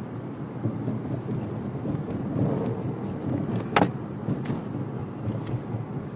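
Steady low rumble of a car's engine and tyres heard from inside the cabin while driving, with one sharp click a little under four seconds in and two fainter ticks after it.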